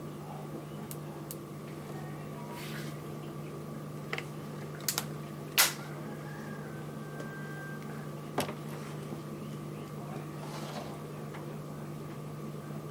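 Air rifle being fired once, a single sharp crack about five and a half seconds in. A few fainter clicks come before and after it, over a steady background hum.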